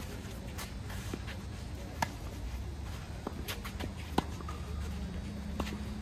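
Tennis rally on a clay court: racket strings striking the ball, with two sharp pops about two seconds apart, the second near the end of the rally exchange, among fainter hits, ball bounces and scuffing shoe steps.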